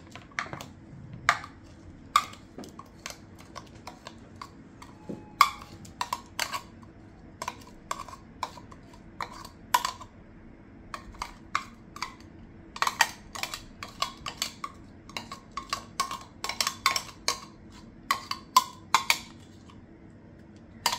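Kitchen utensils knocking and tapping in an irregular run of sharp, short knocks, a few a second with pauses, many with a brief ringing tone, as ingredients are added and handled.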